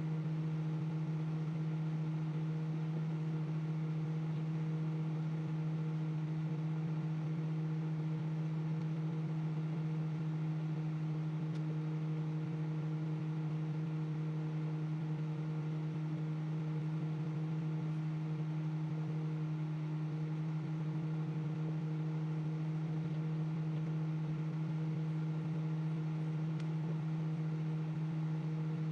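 Microwave oven running: a steady, unbroken low electrical hum with a fainter whirr over it, as it heats a marshmallow.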